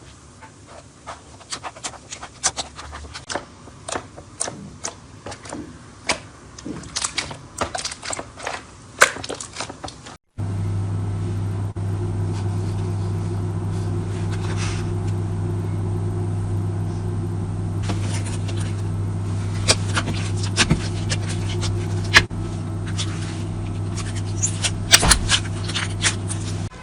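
Slime being squeezed and worked by hand, a run of sticky crackles and pops. About ten seconds in, a steady low hum starts under the crackling and runs on.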